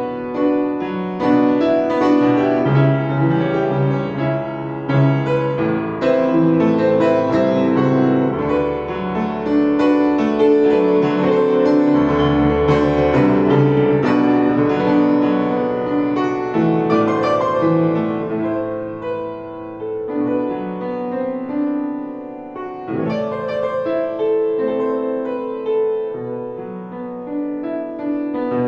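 Upright acoustic piano playing a continuous melody over sustained chords, with notes overlapping and ringing on. The playing grows softer about two-thirds of the way through.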